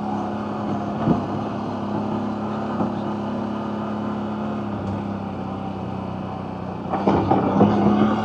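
CFMoto CForce 1000 Overland ATV's V-twin engine running steadily at trail speed. A single knock comes about a second in, and the sound grows louder with several knocks and rattles from about seven seconds in.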